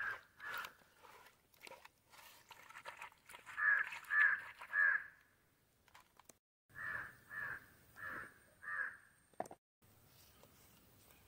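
Crows cawing: short harsh caws in runs of three or four, with a few faint clicks between.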